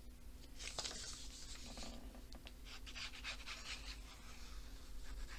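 Thin printed paper and file-folder card rustling as they are picked up and handled, in faint, scattered scratchy stretches with a few light clicks.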